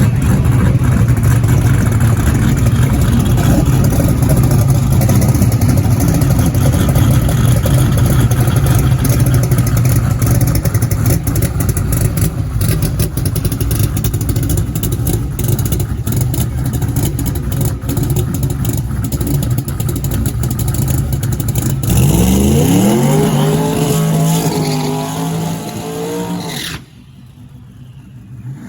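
Drag-racing car engine running loudly at a steady rumble, then revving up with a rising pitch as the car accelerates away; the sound drops off abruptly near the end.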